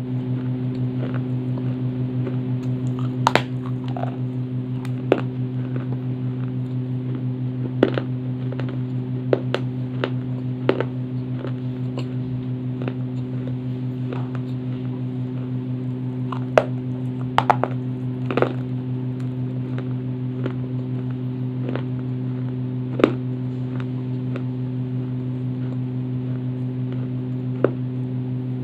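Dry baked clay being bitten and crunched in the mouth: sharp, irregular crunches every second or few, over a steady low hum.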